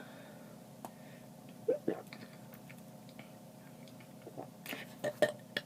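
A person's soft mouth and throat noises between burps: scattered wet clicks and a small gulp, with a quick run of louder clicks about five seconds in, over a faint steady hum.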